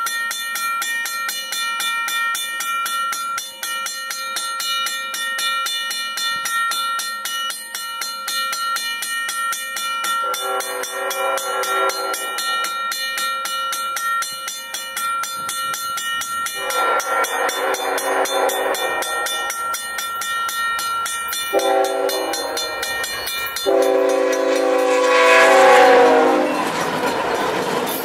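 A grade-crossing bell rings steadily while a CN GE ET44AC diesel locomotive approaches and sounds its horn in the grade-crossing pattern: long, long, short, long. The last blast runs into a loud rush of engine and wheels as the locomotives pass close by, followed by freight cars rolling past.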